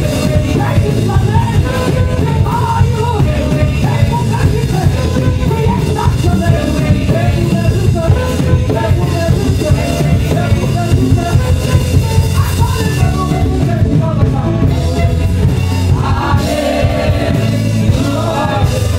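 Saxophone playing a melody over a live band, with a drum kit and heavy bass keeping a steady beat.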